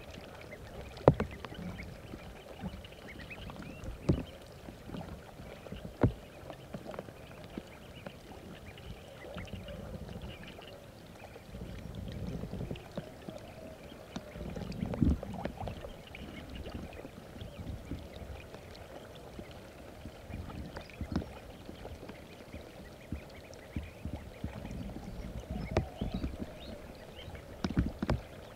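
Water sloshing and splashing, with sharp knocks now and then, the loudest about a second in and near 6 seconds.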